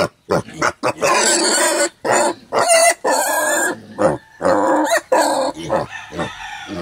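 Piglets squealing in a quick string of short, loud cries, several in a row, dying down about five seconds in.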